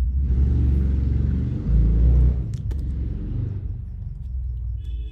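Loud low rumble with a rushing noise that swells in just after the start, is loudest about two seconds in and dies away after about three and a half seconds, with a few sharp clicks around the middle.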